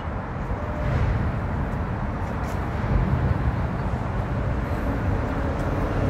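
Steady city street noise: a low traffic rumble with hiss and no distinct single event.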